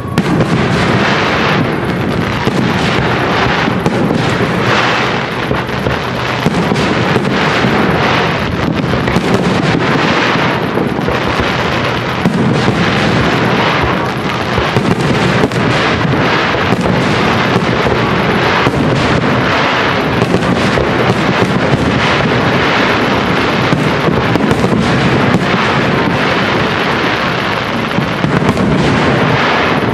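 Fireworks display: a continuous, dense run of shell bursts and crackles with no pause.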